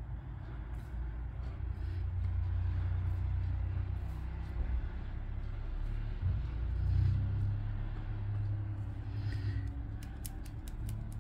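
A low rumble, like an engine, swells around the middle. Over it is the faint scraping of a plastic scraper on a scratch card, and a quick run of clicks near the end.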